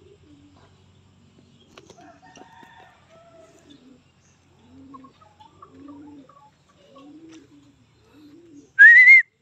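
Low, soft bird calls repeating about once a second, with a short, loud rising whistle near the end.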